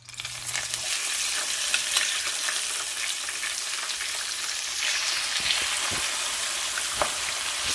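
Raw shrimp frying in hot oil: a sizzle that starts suddenly as they go into the pan, then keeps up a steady hiss with scattered crackles and pops.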